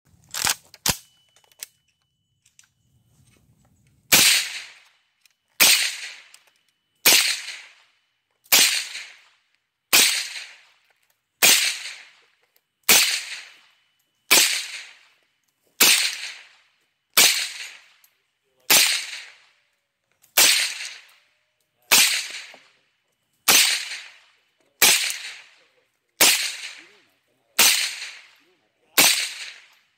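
IWI Galil ACE SBR rifle fired through a Rugged Surge 7.62 suppressor: about eighteen suppressed shots at a slow, even pace, roughly one every second and a half, each a sharp report with a short fading tail. A few sharp clicks come in the first second, and the steady firing begins about four seconds in.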